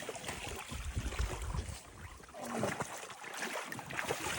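Water sloshing and splashing around a small boat being manoeuvred in a lake, with scattered knocks and a low rumble about a second in.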